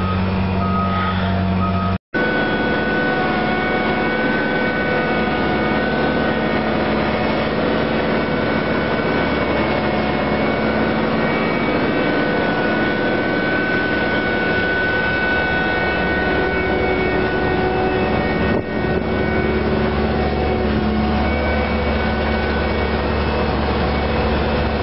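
Heavy diesel engines of a Caterpillar AP555E tracked asphalt paver and a dump truck running steadily, with a steady high whine over the drone. Two short beeps come near the start, and the sound drops out briefly about two seconds in.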